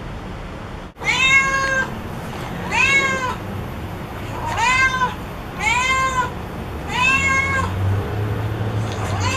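Recorded cat meows played through a smartphone's speaker: a regular run of about six drawn-out meows, each rising then falling in pitch, one every one to two seconds. The sound cuts out briefly just before the first meow, about a second in.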